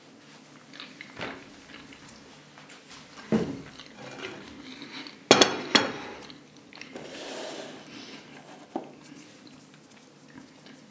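Fork and knife clinking and knocking on a plate as the plate with its cutlery is moved aside, with three loud sharp clinks a little after halfway.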